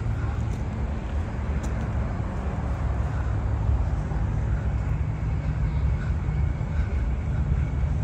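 Steady outdoor background noise dominated by a low, even rumble, with no distinct events.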